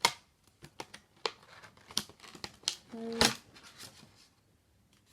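Plastic packaging and a computer mouse being handled: a string of sharp clicks and light crinkling, with a louder cluster and a brief short tone about three seconds in.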